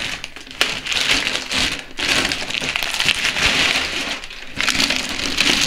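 Clear plastic wrapping crinkling and rustling as it is handled on a ceramic toilet bowl, in uneven surges, with a sharp click about half a second in.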